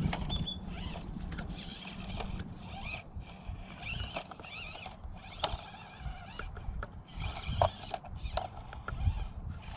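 Axial SCX24 Bronco micro crawler picking its way over rocks: its small electric motor and gears whir, with scattered light knocks and clatters as the tyres and chassis hit the stone. Birds chirp in the background.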